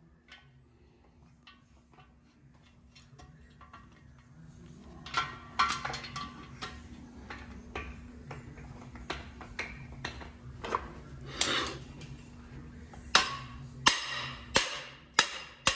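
Hammer striking metal in a cast-iron Mopar 440 V8 block, driving out the engine's bearings: scattered light taps from about five seconds in, building to about five hard, ringing blows near the end.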